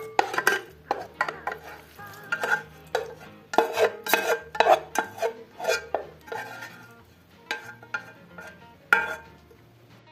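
Plastic slotted spatula scraping sautéed vegetables out of a nonstick frying pan into a glass bowl: a run of irregular scrapes and knocks of spatula on pan and pan against the bowl's rim, ending about nine seconds in.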